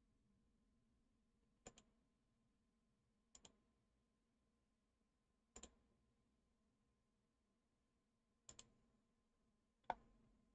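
Computer mouse clicking five times, one to three seconds apart, some as quick double clicks, over near silence.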